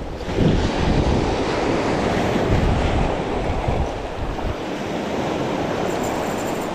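Sea surf washing over a rocky shoreline, with wind buffeting the microphone.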